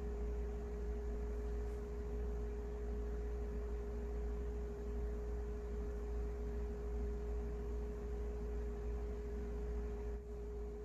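Steady low hum with one constant pure tone above it, unchanging throughout; no other sound stands out.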